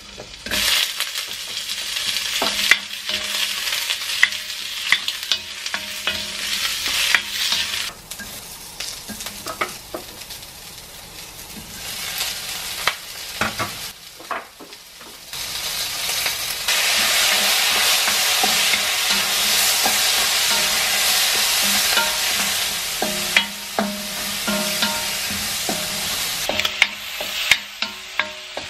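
Asparagus, carrot and abalone sizzling in butter in a hot wok as they are stir-fried and tossed, with sharp knocks of the utensil against the pan. The sizzle eases off around the middle and comes back louder from about 16 seconds in.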